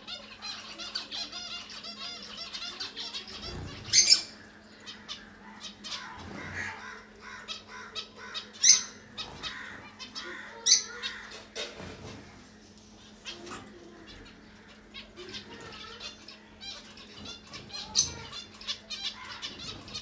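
Young finches giving rapid, repeated high chirping calls, most continuous in the first few seconds. Several sudden loud wing flutters break through as birds fly in and land on the perch: one about four seconds in, two around the middle and one near the end. The calls fit chicks begging to be fed.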